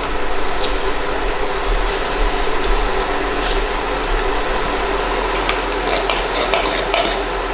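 Onions, spices and black beans sizzling steadily in a frying pan, with a few clicks and scrapes of a metal spoon as beans are scooped from a glass jar into the pan.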